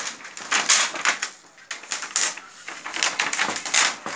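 Thin plastic reflector sheet from an LED TV backlight crackling and rustling as it is peeled up and lifted off the metal backlight tray, in a run of uneven crinkles.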